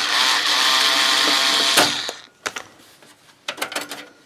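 A handheld power drill-driver runs steadily for about two seconds, then stops, removing screws from the computer case. A few light clicks and knocks of parts being handled follow.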